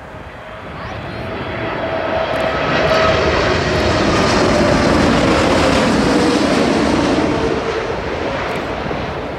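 Boeing 747 jet airliner passing low overhead on final approach with its landing gear down: the noise of its four jet engines swells over the first few seconds, holds loud, then eases, with a whine that drops in pitch as it goes past.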